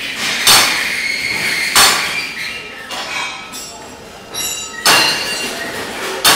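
Loud metallic clanks with ringing: four sharp strikes at irregular intervals over a noisy background.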